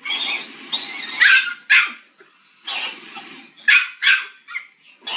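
A puppy barking and yipping in a series of short, high barks.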